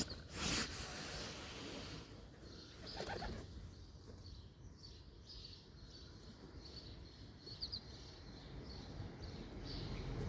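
Birds' wings flapping in a brief burst about half a second in, a short call about three seconds in, then small birds chirping again and again over a steady low background rumble.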